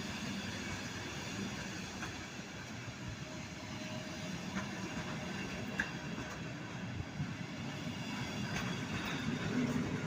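Train moving through a railway station: a steady rumble with a few sharp clicks.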